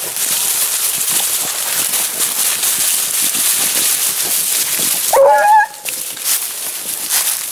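Dry leaf litter rustling and crunching under feet and dog paws, then about five seconds in a single short, pitched yelp from one of the rabbit-hunting beagles.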